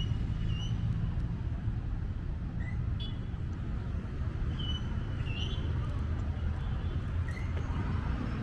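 Car driving on a road: a steady low rumble of engine and tyres, with a few short high chirps now and then.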